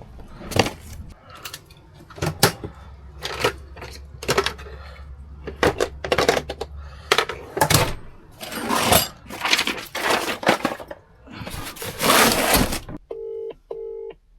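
A run of sharp knocks, clatter and rustling over a low hum that stops about halfway, then two short electronic beeps near the end.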